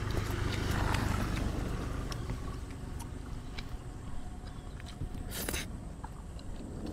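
A low rumble that swells over the first couple of seconds and then fades, under faint chewing clicks as black-bean-sauce noodles are eaten, with one short slurp-like hiss about five seconds in.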